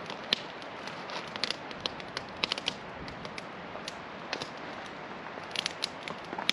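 Wood campfire crackling, with sharp irregular pops, over the steady rush of a river.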